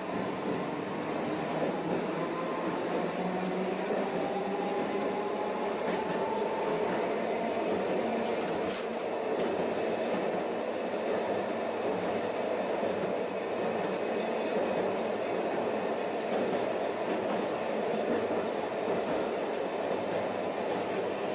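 Tosaden tram heard from inside the driver's cab as it runs along the track: a steady rumble of wheels on rail with a motor whine rising in pitch over the first several seconds as the tram picks up speed, and a few sharp clicks about eight seconds in.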